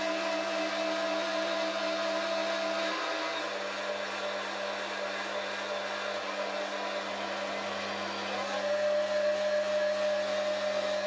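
Foreman TB1835 mini lathe running, its spindle motor giving a steady hum with a whine over it, while the tool takes a roughing cut along the outside of the bar. The whine fades about three seconds in and returns a little louder about eight seconds in.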